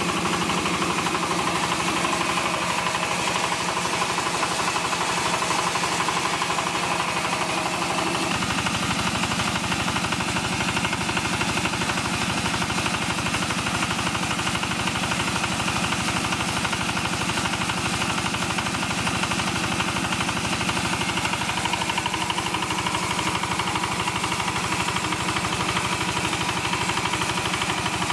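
Stationary diesel engine chugging steadily as it drives a belt-driven maize crusher that is grinding maize. The sound gets heavier and deeper about eight seconds in.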